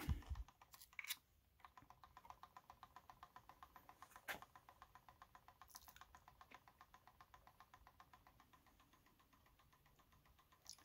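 Pulse motor with a 3D-printed six-magnet rotor clicking faintly and evenly, about five clicks a second as the magnets pass the coil, fading out after several seconds.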